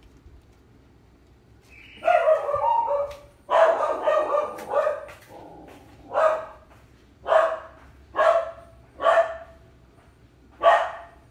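A dog barking: a quick run of barks and yips, then five single barks about a second apart.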